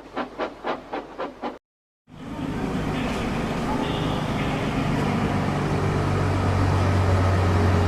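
Steam locomotive sound effect puffing steadily, about six chuffs a second, cutting off suddenly about a second and a half in. After a brief silence, a steady low hum with a noisy hiss over it comes in and slowly grows louder.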